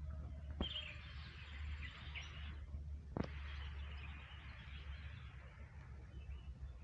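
Wild birds calling, over a steady low rumble. Two sharp clicks about two and a half seconds apart, each followed by a couple of seconds of harsh hissing chatter.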